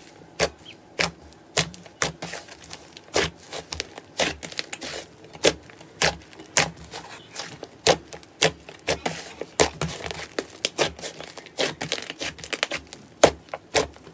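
Slime being squeezed and pressed by hand, giving many sharp pops and crackles at irregular intervals that come thicker in the second half.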